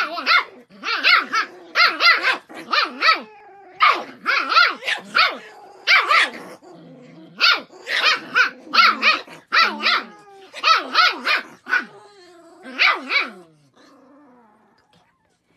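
Shiba Inu puppies barking at each other in play, in quick runs of three or four high-pitched yaps, stopping about two seconds before the end.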